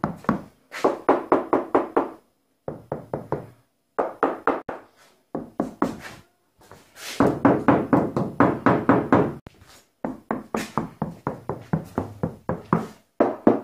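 Knuckles knocking on the Opel Astra's steel roof panel in quick runs of several strikes a second, each knock with a short hollow ring. The roof has its first layer of stiff self-adhesive vibration-damping sheet, and the knocking tests how well it deadens the panel: already audible.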